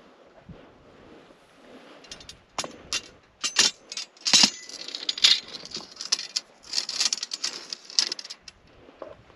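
Hiking gear clinking and rattling: a run of sharp clicks and metallic jingles starts about two seconds in and stops near the end.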